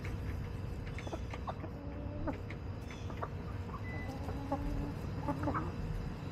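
A flock of backyard hens clucking, with short calls and a few longer, drawn-out low notes.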